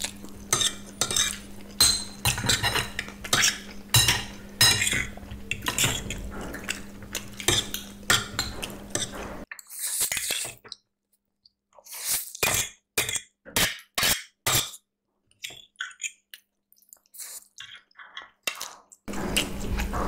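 Metal forks clinking and scraping on plates as chow mein noodles are twirled and eaten, with eating noises mixed in. Dense at first, the sounds thin out about halfway to separate sharp clicks, then turn dense again near the end.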